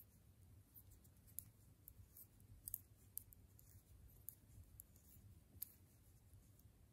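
Faint, irregular light clicks of knitting needles tapping against each other as stitches are knitted by hand, over a low steady room hum.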